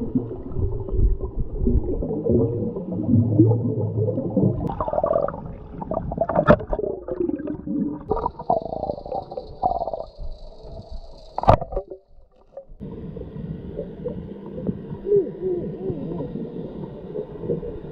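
Muffled underwater sound: gurgling bubbles and moving water, with two sharp knocks, one about a third of the way in and one about two-thirds in.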